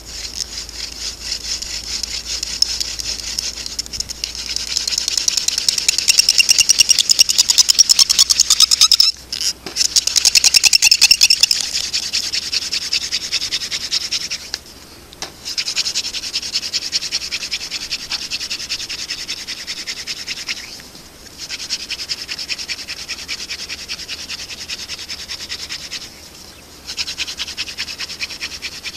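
Friction-fire hand drill: a thin mullein spindle twisting in a Swiss pine fireboard, its tip rubbing with a fast, steady, squeaky chatter. It is loudest in the first third and stops briefly four times.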